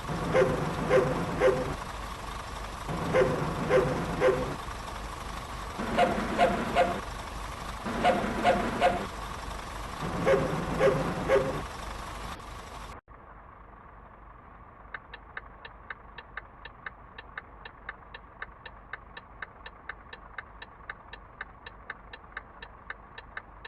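A bus's novelty 'wolf' sound device (knalpot srigala) sounding in sets of three short, bark-like blasts, repeated about every two seconds, some sets pitched higher than others. About halfway through it cuts off abruptly, and a faint steady ticking of about four a second follows.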